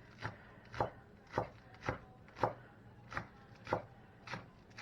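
Kitchen knife chopping green onions on a cutting board: about nine even strokes, a little under two a second.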